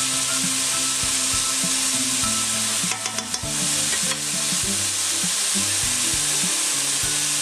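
Diced carrots, mushrooms and onion sizzling steadily in olive oil in a nonstick pan, stirred with a spatula that scrapes and taps against the pan now and then, with a short cluster of clicks about halfway through.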